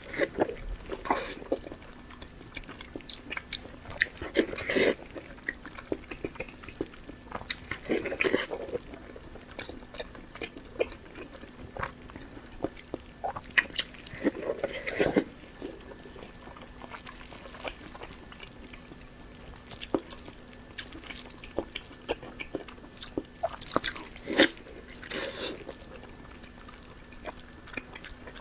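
Close-miked mouth sounds of someone eating pork belly: biting, chewing and wet smacking clicks, with a few louder bites spread through.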